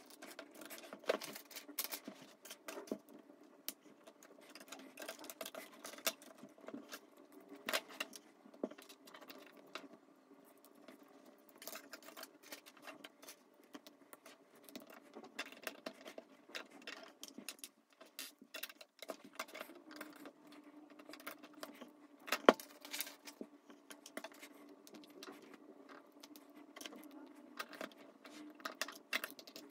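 Plastic LEGO bricks clicking and rattling as they are picked up, pressed together and set down on a wooden table: many small irregular clicks, with one sharp louder snap about three-quarters of the way through.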